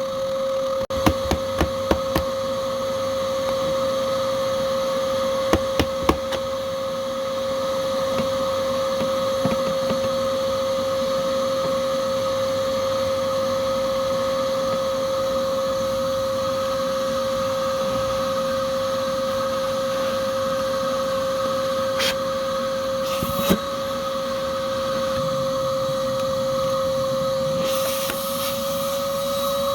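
A vacuum's motor running steadily with a constant hum, with a cluster of sharp clicks and knocks about a second in, more around six seconds in, and two more a little after twenty seconds.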